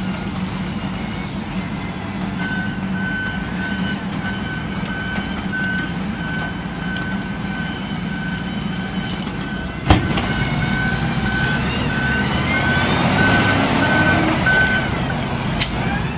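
Volvo L90 wheel loader's diesel engine running as asphalt spills from its tipped bucket, with a backup alarm beeping steadily from a couple of seconds in until near the end. About ten seconds in there is a sharp bang, then the engine revs up with a rising whine.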